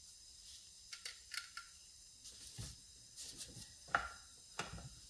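Small metallic clicks and knocks from chainsaw parts being handled and fitted while the chain brake is put back together. Three light clicks with a short ring come about a second in, then a few duller knocks, with the sharpest click near four seconds in.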